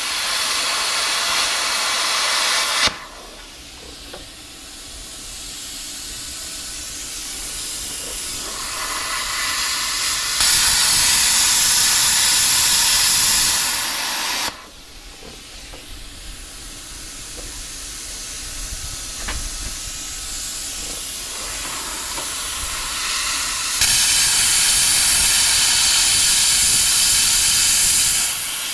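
Loud hissing rush in three bursts of a few seconds each, switching on and off sharply, with a softer rush between them that slowly builds.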